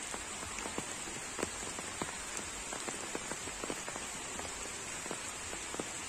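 Steady rain falling, with many separate raindrops striking close by throughout.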